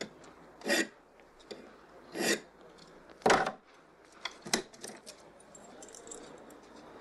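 A hand file rasping across a metal key clamped in a bench vise: three strokes, the last the loudest. Then small metallic clicks and taps as the vise is loosened and the key is handled.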